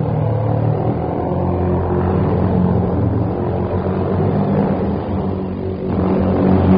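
Live runway music on traditional Tibetan instruments: a deep, sustained drone of low tones that swells a little near the end.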